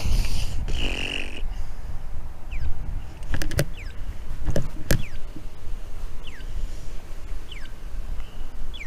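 Wind rumble on the microphone as a fixed-gear bike rolls over pavement, with a few sharp clicks around the middle as it comes down a curb ramp. Several short, falling bird chirps are scattered through it.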